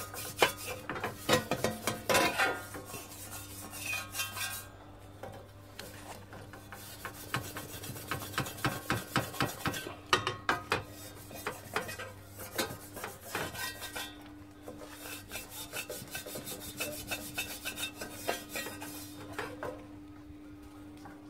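Metal scrubber held in tongs scraping and wiping across the inside of a hot copper frying pan in quick repeated strokes, spreading molten tin during retinning. The strokes pause briefly about four to six seconds in and stop near the end.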